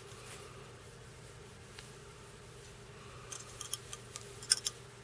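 A quick run of small, sharp clicks starting a little past three seconds in, lasting about a second and a half and loudest near the end, from hands handling small fly-tying tools at the vise, over a faint steady hum.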